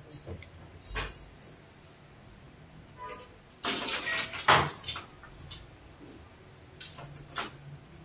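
Small metal and plastic parts being handled: a few clicks, then a louder rattling scrape a little past the middle as the anodised aluminium cap comes off a clear plastic master cylinder fluid reservoir, and two more clicks near the end.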